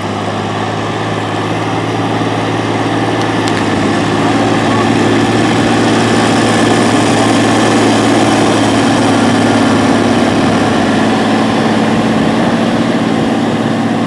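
Heavy harvest machinery's diesel engine running steadily under a rush of mechanical noise, getting a little louder over the first few seconds.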